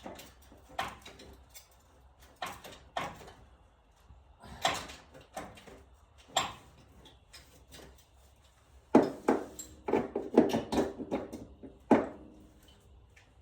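Hand tools clicking and knocking against metal in the engine bay while a spark plug is being worked in, with a quicker run of ringing metallic clicks from about nine seconds in.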